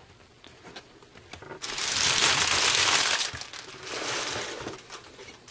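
Crinkling of a trading-card pack's foil wrapper being handled: quiet at first, then a loud crinkle lasting about a second and a half, followed by softer rustling.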